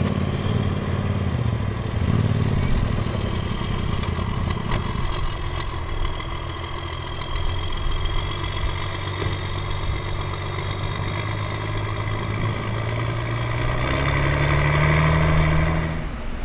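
Off-road vehicle engine running at low revs, then revving up for about two seconds near the end before dropping back.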